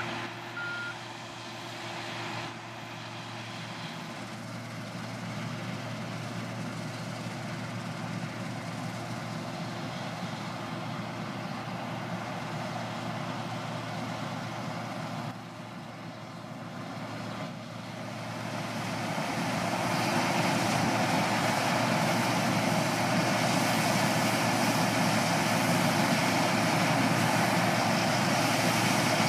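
New Holland 3550 AL combine harvester, with a six-cylinder Iveco/Fiat diesel, running steadily while harvesting barley, with a reversing beeper sounding briefly at the start. About two-thirds of the way through the engine and threshing noise grow much louder as the combine comes closer, cutting the crop.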